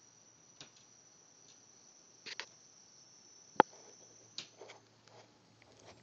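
A few scattered knocks and clicks, loudest a single sharp knock about halfway through, over a faint steady high-pitched whine.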